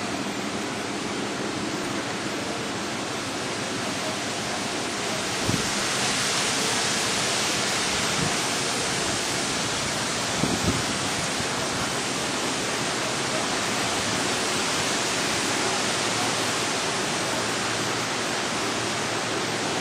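Steady rushing of tropical-storm wind and rain, growing louder and hissier about five seconds in, with a few brief low thumps.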